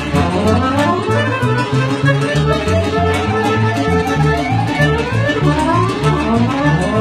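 Piano accordion playing lăutărească music: quick rising and falling runs of notes over a steady, regular bass line.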